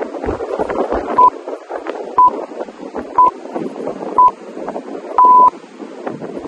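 Interval timer countdown beeps: four short high beeps about a second apart, then one longer beep, signalling the end of a workout interval and the switch to the next exercise.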